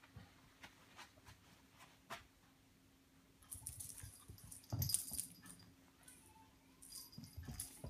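A cat playing with a cat toy: scattered light taps at first, then two spells of rattling, with a louder knock about halfway through.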